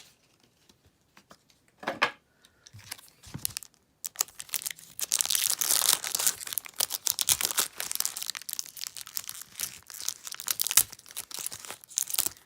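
Pokémon booster pack's foil wrapper being torn open and crinkled: a dense crackling from about four seconds in that goes on to the end, the wrapper tearing in an odd way.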